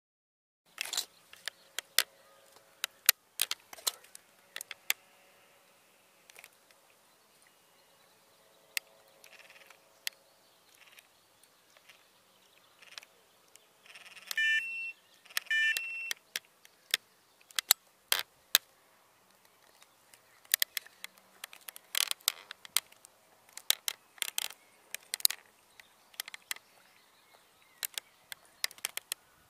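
Sharp clicks and taps scattered throughout, with two short electronic beeps from a carp bite alarm about halfway through, roughly a second apart.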